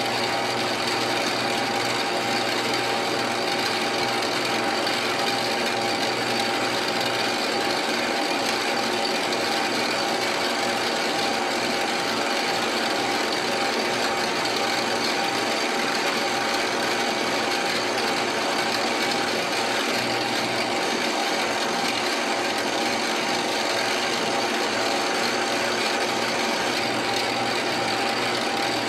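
Metal lathe running steadily, turning down a workpiece held between the chuck and a live center.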